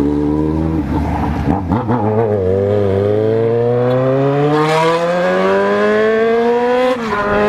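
Yamaha XJ6 motorcycle's inline-four engine accelerating hard through the gears. After a shift about two seconds in, the revs climb steadily for some four seconds, then drop away at the next shift near the end.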